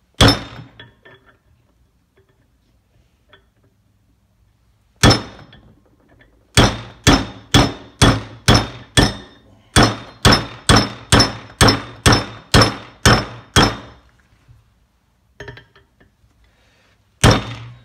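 Hammer blows on a 19 mm impact socket, driving a new wheel bearing into the hub of a Razor MX650 wheel, each blow ringing metallically. A single blow, another about five seconds in, then a steady run of about sixteen blows at roughly two a second, and a few lighter taps and one last blow near the end.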